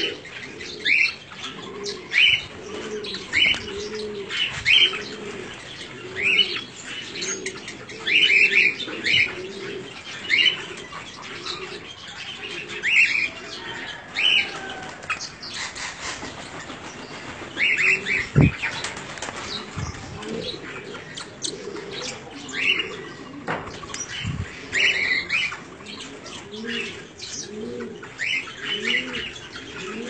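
Aviary of small parrots (grass parakeets, rosellas and cockatiels) giving short sharp chirps about once a second, over a low rounded call repeated again and again, with a couple of brief thumps past the middle.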